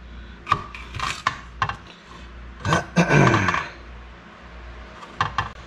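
Kitchen knife cutting a jalapeño pepper in a clear plastic container, the blade clicking and tapping against the plastic several times. A short pitched sound that falls in pitch comes about three seconds in.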